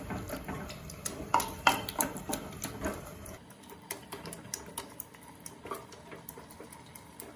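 Wooden star-headed saag masher (ghotna) churning cooked mustard greens in a pressure cooker, knocking irregularly against the pot. The knocks are louder in the first three seconds and fainter after.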